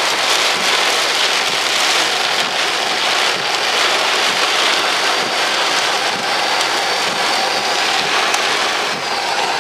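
Heavy rain pelting a car in a severe thunderstorm, heard from inside the cabin: a loud, steady hiss.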